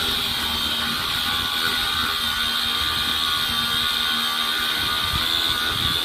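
Milwaukee M18 Fuel cordless angle grinder running steadily with a high, unbroken whine, its wheel working through metal.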